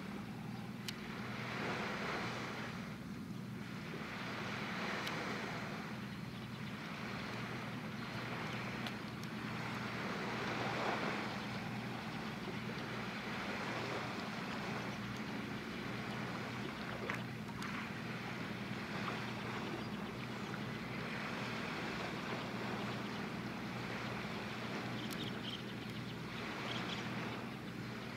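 Seashore ambience: small waves washing in and drawing back every few seconds, over a steady low hum, with some wind on the microphone.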